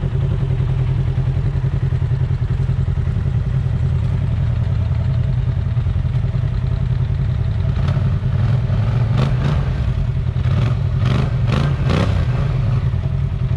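ATV engine running steadily as the machine rides along. A quick series of sharp clattering knocks comes in the last few seconds.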